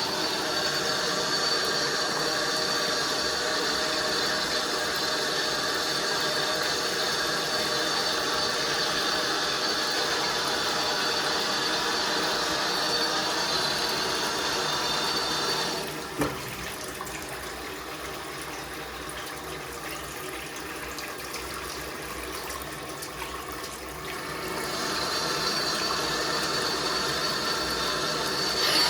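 Bathroom basin mixer tap running with a very loud, steady squeal and shrill whistle over the water flow, the fault that comes on when hot and cold are mixed. About halfway through it drops to a quieter, plainer rush of water with the whistle gone, then the squeal returns near the end and cuts off abruptly.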